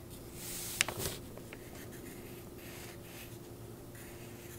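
Pencil scratching on paper in short sketching strokes, the strongest about half a second in with a sharp tick just before one second, then fainter strokes, over a faint steady hum.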